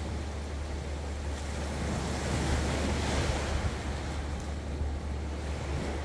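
Small waves breaking and washing up a stony shore, swelling about two seconds in and then easing, over a steady low rumble.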